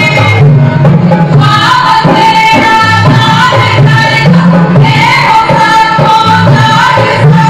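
Punjabi folk song for giddha: a woman singing long, held, sliding notes over loud music.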